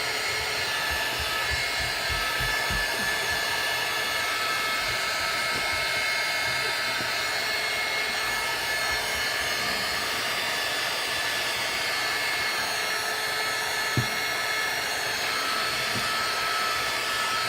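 Heat gun blowing hot air steadily, with a faint steady whine from its fan motor, warming an iPhone's screen to soften the adhesive before it is pried open. One light knock about fourteen seconds in.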